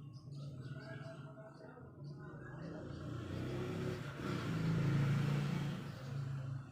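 A motor vehicle's engine passing by, with a low hum that swells to its loudest about five seconds in and then fades.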